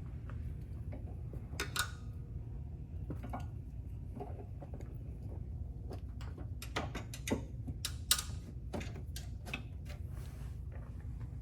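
Scattered metal clicks and knocks of tools and parts as split bushing blocks are worked onto a Can-Am Spyder's sway bar with a small pry bar, busiest and loudest about seven to nine seconds in, over a steady low hum.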